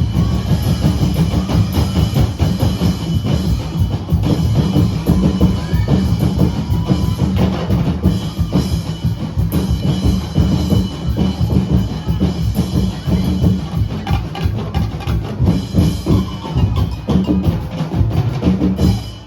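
Percussion band of bass drums and snare drums playing a fast, driving street-dance beat, cutting off abruptly near the end.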